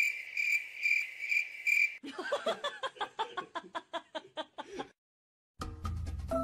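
Crickets chirping: a high, steady chirp pulsing a couple of times a second for the first two seconds, followed by a quick run of short pulses, a brief silence, and music starting near the end.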